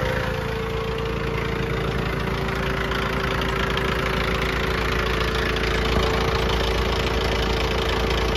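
Mahindra 6500 tractor's 60-horsepower diesel engine idling steadily, with a small Pittsburgh 12-volt tire-inflator compressor running alongside it, pumping up a tractor tire.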